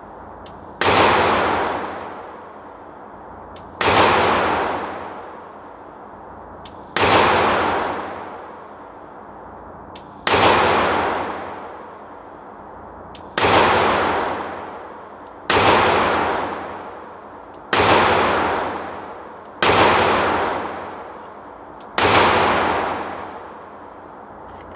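SIG Sauer P365 pistol fired nine times in slow, unevenly spaced shots, roughly every two to three seconds, each shot trailing off in a long echo: emptying its 10-round magazine until the slide locks back.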